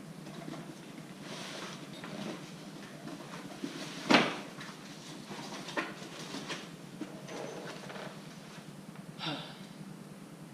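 Lift-kit parts and cardboard boxes being handled: rustling and scraping of cardboard, a sharp knock about four seconds in, and a few lighter clicks and taps.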